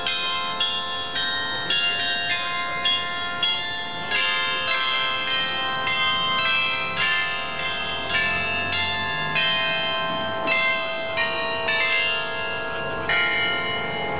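Church glockenspiel of tuned bells (carillon) playing a melody, a new bell note struck about every half second, each ringing on under the next.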